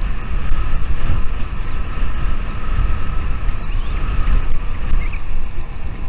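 Wind buffeting the microphone with a steady rumbling noise. A couple of short, high bird chirps come through a little past the middle.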